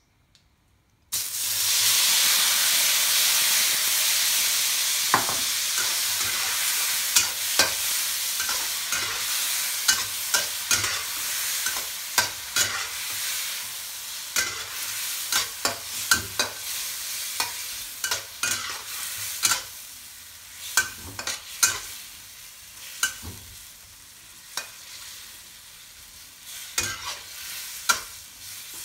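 Tomato wedges going into hot oil in a wok: a sudden loud sizzle about a second in, then stir-fried with a metal spatula that scrapes and clicks against the wok while the sizzle slowly dies down.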